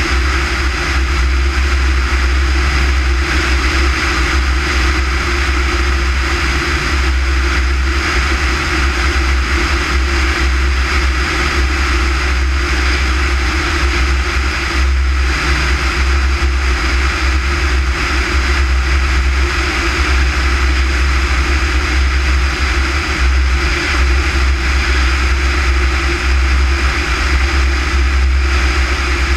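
Small fixed-gear airplane in flight: a steady, unchanging engine drone mixed with loud rushing air and a deep rumble on the outside-mounted microphone.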